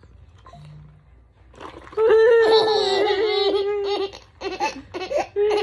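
Toddler laughing: a long run of high-pitched, squealing laughter starting about two seconds in, then shorter bursts of giggling.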